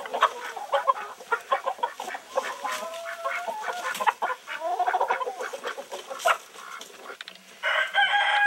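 Chickens clucking and squawking in rapid, overlapping calls as the flock is herded in for the night. Near the end a rooster crows in one long call.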